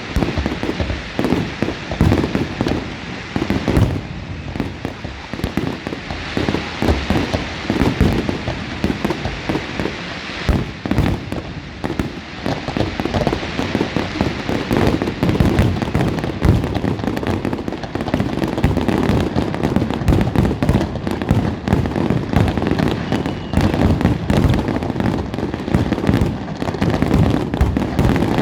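Firework display: a dense, continuous barrage of bangs and crackling bursts overlapping one another, with no pause.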